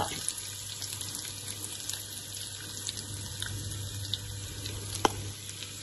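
Dal batter sizzling steadily as it is spooned into the hot, oiled cavities of an appe pan, with a sharp click of the spoon against the pan about five seconds in.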